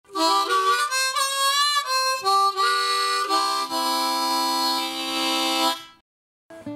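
Harmonica playing a short phrase of notes and chords, with a wavering bent note early on, ending on a long held chord that cuts off near the end.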